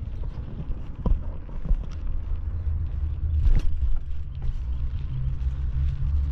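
Steady low rumble of a motor vehicle engine, with a few small knocks and one sharper noise about three and a half seconds in.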